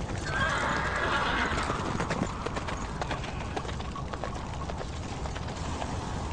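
Horse's hooves clip-clopping at a walk, with a horse neighing from about half a second to two seconds in.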